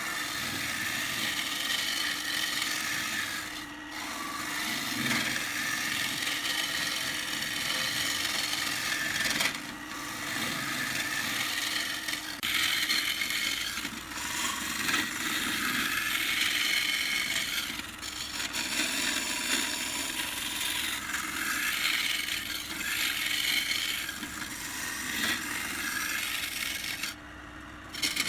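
A tool rubbing against wood spinning on a lathe, a steady scraping noise in long passes broken by short pauses, with a quieter gap near the end.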